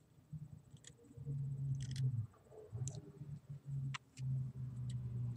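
Small knife carving the hook end of a wooden stick: light clicks as the blade nicks off shavings, a few times, over a low rubbing sound of the blade and hands working the wood.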